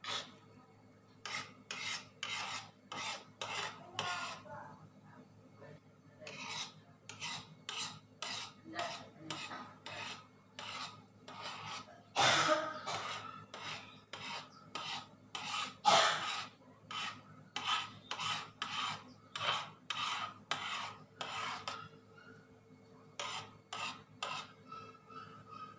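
Metal spoon scraping the bottom of a large aluminium wok while stirring coconut milk being cooked down into coconut oil, in quick rasping strokes about two a second with short pauses.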